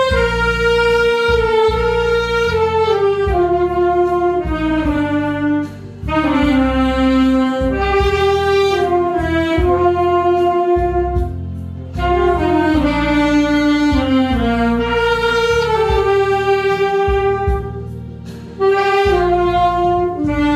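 Saxophone playing a slow ballad melody over an accompaniment track with bass. The tune moves in phrases of about six seconds, each stepping downward in pitch, with a short breath gap between them.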